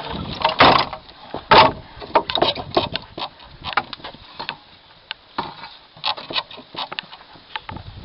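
Weathered wooden plank door of a log cabin being handled and shut: two loud wooden knocks in the first two seconds, then a run of lighter clicks and taps.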